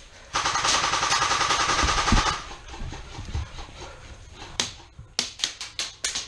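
Airsoft electric rifle firing a full-auto burst of about two seconds, a fast even stream of shots. Near the end come several separate sharp shots.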